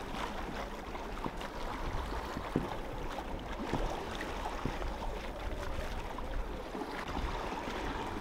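Water rushing and splashing along the hull of a small sailboat moving under sail through choppy water, a steady wash with faint scattered ticks.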